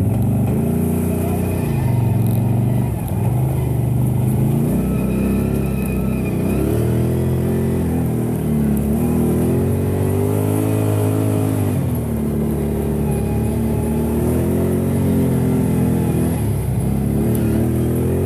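Can-Am Outlander ATV engine running under throttle while riding, the revs rising and falling several times as the rider speeds up and eases off.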